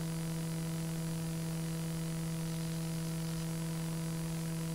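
Steady electrical hum: a low buzzing tone with evenly spaced overtones above it, holding unchanged, with faint hiss.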